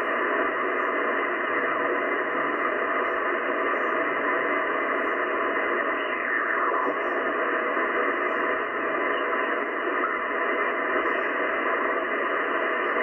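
Shortwave band noise from a Yaesu FTdx10 transceiver tuned in upper sideband: a steady, filtered hiss as the dial is turned slowly across empty frequencies between 5.55 and 5.60 MHz. About six seconds in, a whistle slides down in pitch as a carrier is tuned past.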